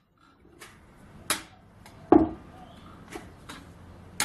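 A few sharp metal knocks on a circular saw blade, the loudest about two seconds in with a short ring after it: an attempt to knock out the blade's centre, which will not budge.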